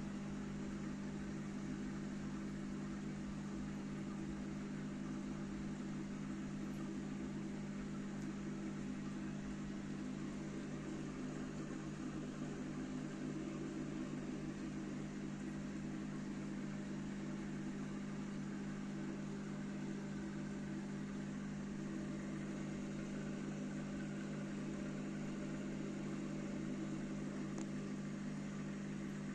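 Aquarium pump humming steadily, with a low mains-like drone under a constant hiss of water and air bubbling.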